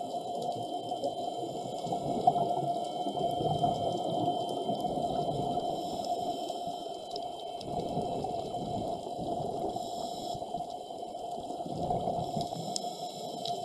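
Underwater sound picked up through a dive camera's housing: a scuba diver's regulator breathing and exhaust bubbles, swelling and fading in slow surges about every four seconds, over a steady hum.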